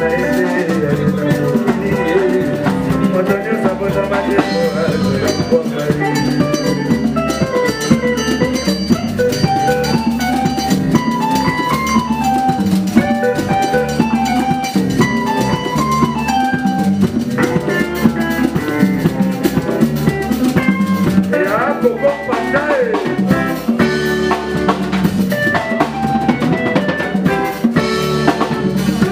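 Live band playing: hand-played conga drums and a drum kit keeping a steady dance beat under electric guitars picking a melody and a bass guitar.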